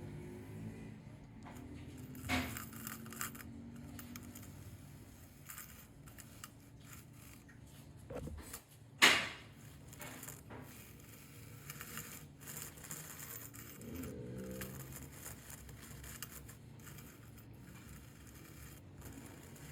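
Small metal parts and tools being handled on a work surface: scraping, light clicks and rattles, with a sharp knock about nine seconds in.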